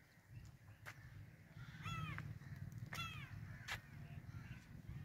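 A crow cawing twice, short harsh calls about two and three seconds in, heard faintly. A few sharp clicks and a low steady rumble sit underneath.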